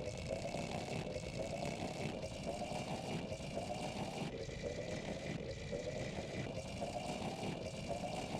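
A cartoon character's snore, chopped into a short sample and repeated about once a second as an edited audio-effect remix; each repeat is a rumbling snore with a slightly rising tone.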